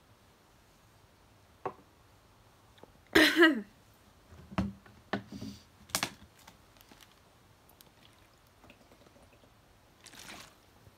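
A short, loud voiced groan falling in pitch about three seconds in, a grimace at the taste of very salty water. A few clicks and knocks of handling follow, and near the end there is a soft liquid sound of drinking from a plastic water bottle.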